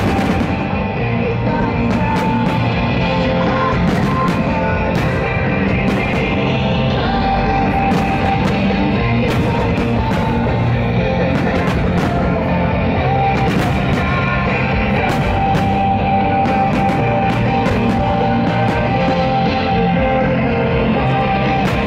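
Loud rock music playing as the soundtrack of a music-synchronised fireworks show, with many sharp, irregularly spaced cracks and bangs from firework bursts over it.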